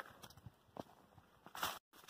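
A few soft footsteps of hiking boots on a dirt trail strewn with dry leaves, unevenly spaced, the last one heavier.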